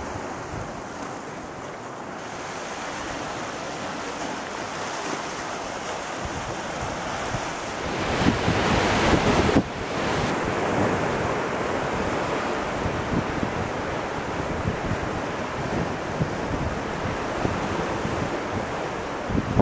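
Wind blowing across the microphone over the wash of sea surf, a steady rushing noise. A stronger gust comes about eight seconds in and breaks off sharply a second and a half later.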